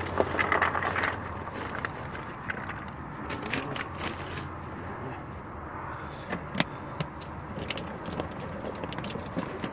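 Boilies (hard carp bait balls) pouring from a plastic bag into the plastic hopper of a Ridge Monkey boilie crusher, rattling loudest in the first second. Then scattered clicks and knocks as the baits are shifted by hand and the lid is shut.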